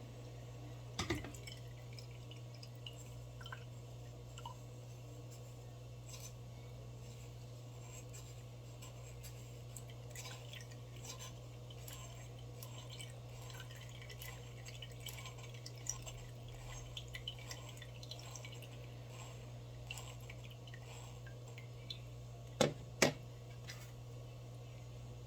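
Faint scattered clicks and taps of glassware and kitchen utensils over a steady low hum, with a louder knock about a second in and two more in quick succession near the end.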